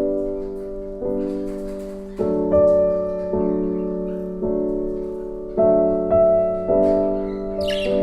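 Intro music: slow piano-like keyboard chords, each struck and left to fade before the next.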